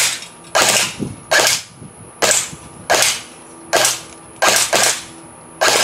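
Battery-powered airsoft electric rifle, a FAL-style replica, firing a string of about nine sharp shots, roughly one every three quarters of a second, with two in quick succession near the end.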